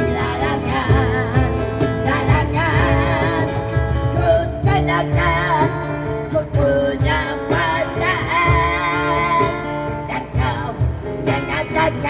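Music: a voice singing with a wide vibrato over a strummed acoustic guitar accompaniment, the singing coming in stretches between guitar passages.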